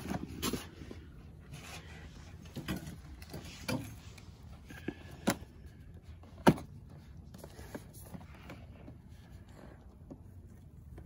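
Scattered knocks, clicks and rubbing of packaging being handled while a box is unpacked, with one sharp knock about six and a half seconds in.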